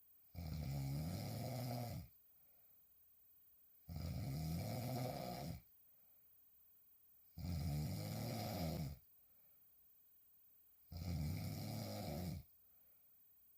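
A woman snoring while sleeping on her back: four long, loud snores, one about every three and a half seconds, each lasting about a second and a half, with quiet breaths between.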